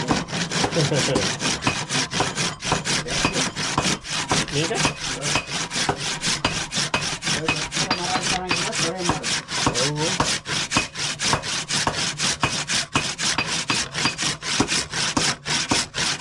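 A handsaw cutting through a cow horn clamped in a vise, in quick, even back-and-forth rasping strokes.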